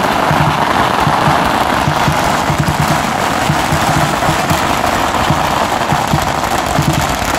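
A string of firecrackers crackling rapidly and without a break, over the booming beat of a lion dance drum.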